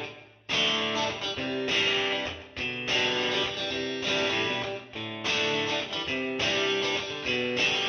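Background instrumental music led by guitar, played in short phrases with brief breaks between them.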